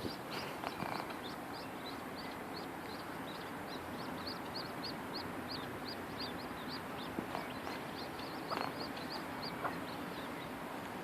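Mandarin ducklings peeping: a steady run of short, high-pitched peeps, about four a second, over constant background noise, with a few soft knocks.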